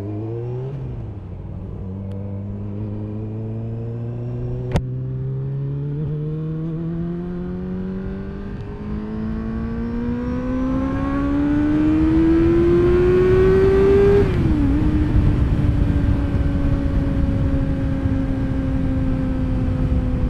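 Sportbike engine pulling steadily under acceleration, its pitch rising smoothly for about fourteen seconds, then a quick dip as it shifts up and the engine settling into a slowly falling note as the throttle eases. Wind noise builds with the speed, and there is one sharp click about five seconds in.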